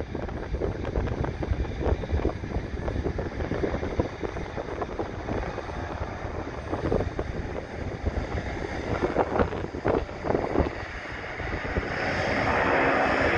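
Wind buffeting the microphone in uneven gusts. About twelve seconds in, the sound of a Boeing 767-300 freighter's jet engines at takeoff thrust swells and grows louder as it lifts off.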